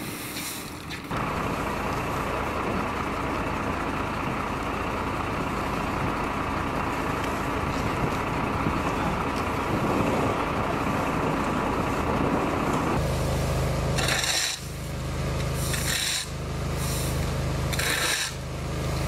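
Emergency vehicles' engines idling with a steady low hum, with rasping scrapes of brooms sweeping crash debris across the asphalt. The sound breaks off abruptly a few times.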